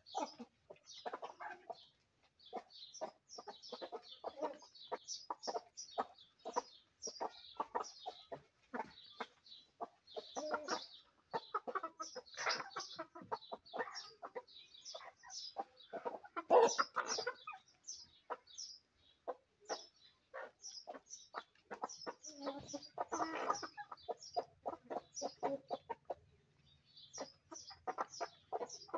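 A mixed flock of Aseel and fancy hens clucking continually with many short, high calls while feeding on grain, with a louder flurry of calls a little past the middle.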